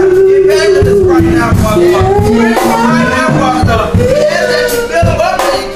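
Live gospel music: a man sings long, sliding notes into a microphone over instrumental backing with low sustained notes and a steady beat.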